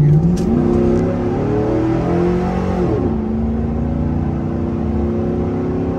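A 2000 GMC Sierra's 5.3-litre V8 with a Corsa stainless exhaust, accelerating hard, heard from inside the cab. The engine note climbs for about three seconds, drops as the transmission shifts up, then runs steadily at a lower pitch.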